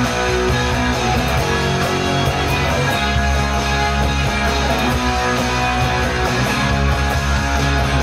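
Single-cutaway Les Paul-style electric guitar strummed in a rock song, along with a full backing of drums and bass.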